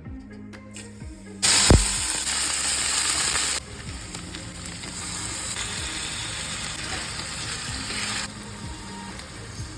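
Food sizzling in hot oil in a pan while chicken badami is being cooked. The sizzle starts suddenly and loud about a second and a half in, with a knock just after. It drops after about two seconds to a softer steady sizzle, which fades further near the end. Background music plays underneath.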